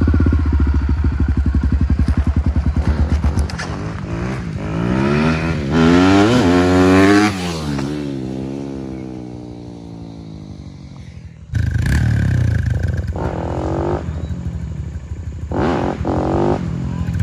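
Single-cylinder four-stroke dirt bike running close by, then revving up through the gears as it pulls away, its pitch rising and falling before it fades into the distance. About eleven and a half seconds in the sound jumps abruptly to the bike again, revving in short bursts.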